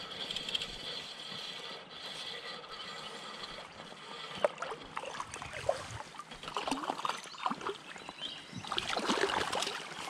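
Creek water running steadily, with a hooked brown trout splashing at the surface as it is reeled in; the splashing comes in irregular bursts from about halfway and is loudest near the end as the fish reaches the net.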